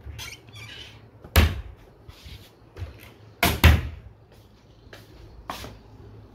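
Wooden cupboard doors knocking shut: one sharp knock about a second and a half in, two quick knocks in the middle, and a lighter one near the end, with rustling in between.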